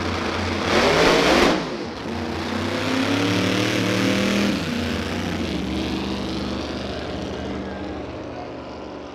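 Two Corvette drag cars launching side by side and accelerating hard down the strip. A loud blast at the launch about a second in, then engines rising in pitch before dropping and fading as the cars pull away.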